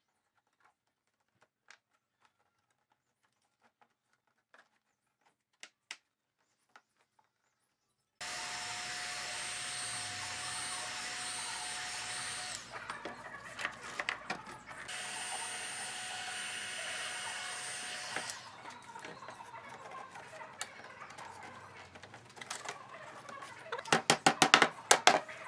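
A handheld electric heat gun blows with a steady hiss and a thin high whine in two runs of a few seconds, with a short break between, heating laminated wood strips so they can be bent on a form. Near the end a wooden mallet knocks the strips down into the form with quick, sharp taps.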